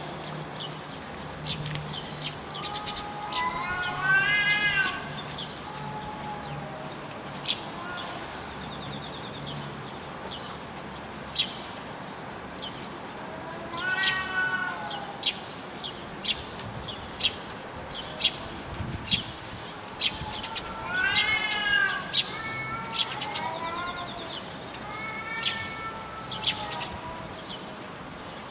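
Cats yowling at each other in a territorial threat standoff: long, wavering cries that rise and fall in pitch, coming in several bouts.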